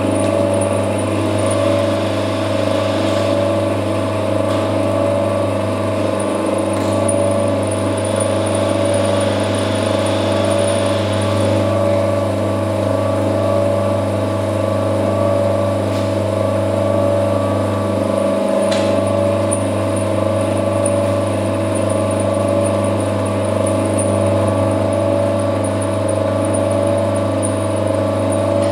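CNC lathe running: steady hum of the spindle drive while a grooving tool cuts into a spinning metal bar, with a faint hiss from the cut in the first half and a single click about two-thirds of the way through.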